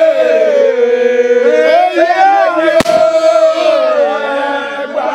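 A group of men chanting and calling out together in long, drawn-out voices, invoking the Yorùbá deity Ògún. A single sharp crack cuts through about three seconds in.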